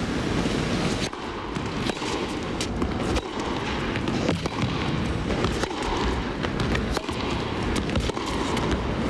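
A tennis rally: rackets strike the ball back and forth as a string of sharp hits, with the ball's bounces on the court among them. Under the hits runs the steady murmur of an arena crowd.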